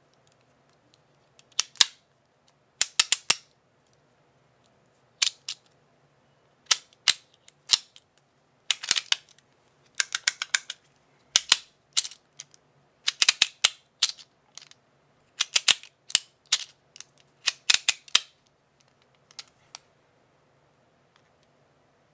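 Mr. Wang Battle Master stainless steel cocking fidget slider being racked over and over: sharp metallic clicks and snaps in quick clusters of two to four, with pauses of about a second between clusters.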